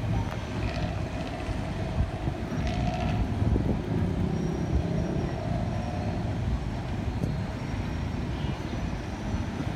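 Steady low rumble of city traffic noise, with a few faint, brief higher tones now and then.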